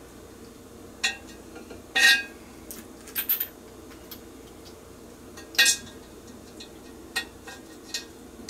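Irregular sharp clinks of metal against glass as a stainless steel spigot is worked and tightened into the opening of a glass beverage dispenser, the loudest about two seconds in and again just past the middle.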